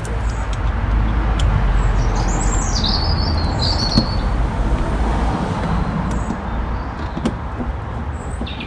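Steady low outdoor rumble with a bird chirping a quick run of high notes about two to four seconds in. A single sharp click about four seconds in, with a few fainter ticks around it.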